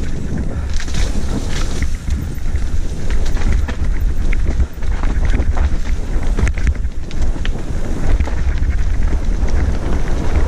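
Wind buffeting a helmet-mounted camera's microphone on a fast mountain bike descent, over the rolling crunch of tyres on dirt and loose stones. Frequent clatters and knocks come from the bike rattling over the rough trail.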